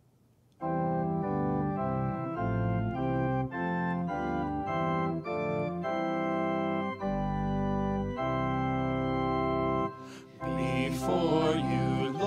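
Organ playing a hymn introduction in held chords that change every second or so, starting about half a second in. Near the end, singers come in with the first line of the hymn over the organ.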